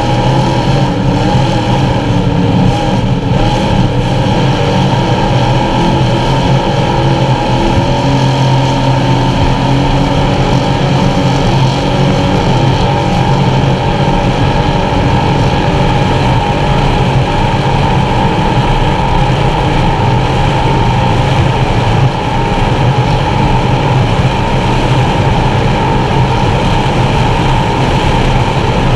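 Engines of a Skater 368 Supercat offshore racing catamaran running steadily at high speed, heard from inside its enclosed cockpit.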